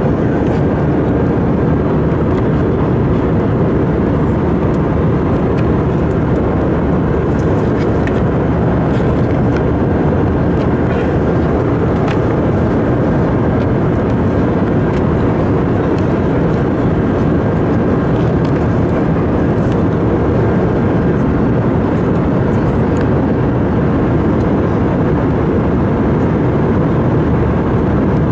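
Steady cabin noise of an Airbus A319 airliner in flight, an even low rumble of engines and airflow with a faint steady whine above it. Occasional faint paper rustles from magazine pages being turned.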